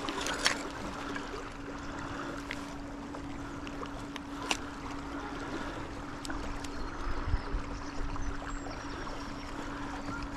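Rusty metal finds being pulled off a neodymium fishing magnet and handled on a stone bridge parapet: a few sharp clicks and scrapes over a steady rushing background, with a low steady hum that stops about nine seconds in.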